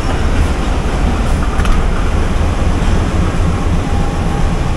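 Passenger train of the Awam Express running along the line, a steady deep rumble with a rushing hiss over it and no distinct wheel clicks.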